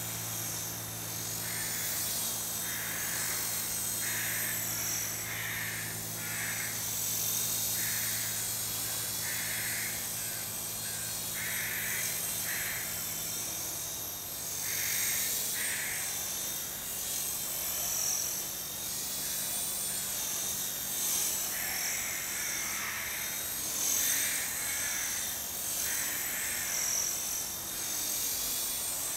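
A small home-made electric collective-pitch RC helicopter flying, heard as a high-pitched motor and rotor whine that wavers in pitch as it is flown. Over it comes a short call repeated in runs, about one to two a second.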